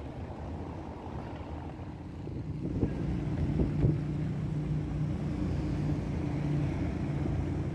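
An unseen vehicle engine running with a steady low hum, growing louder about two and a half seconds in, with wind on the microphone and a few short knocks partway through.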